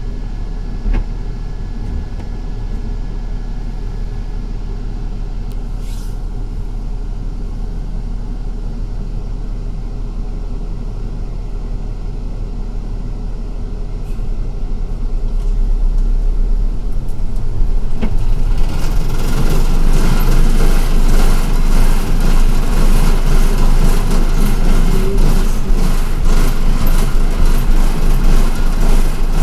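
Cabin noise inside a moving MTA city bus: a steady low engine and road rumble, which grows much louder about halfway through, as the bus picks up speed, with a busy rattle and clatter.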